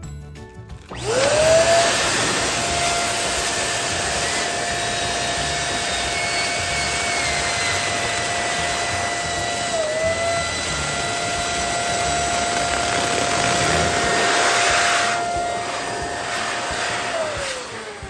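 Electric balloon pump inflating a foil balloon: the motor spins up about a second in, rising to a steady whine over rushing air, dips briefly near the middle, then winds down near the end.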